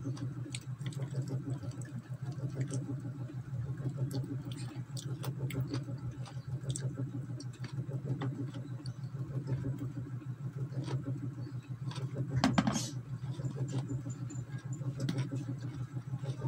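A person chewing chicken adobo close to the microphone, with many small clicks, over a steady low hum. There is one louder short noise about twelve and a half seconds in.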